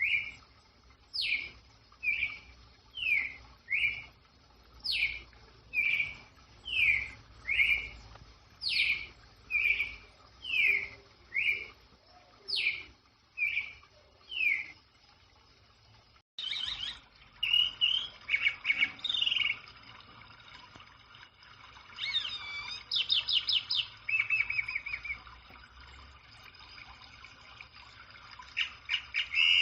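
Two songbirds, one after the other. The first repeats a phrase of four quick down-slurred whistles about every four seconds. After a sudden cut, a second bird sings a more varied song with rapid rolling trills.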